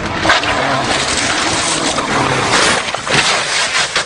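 Rally car driven flat out, a loud, rough engine note under a dense rushing noise, with a few sharp knocks in the second half.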